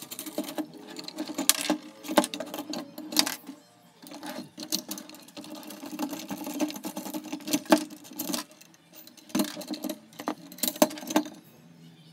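Metal clicks, clinks and scraping as a small drill stand is assembled: a hex key turning in a bolt and the metal drill holder being fitted and worked on its chrome column. The clicks come in irregular clusters with short pauses.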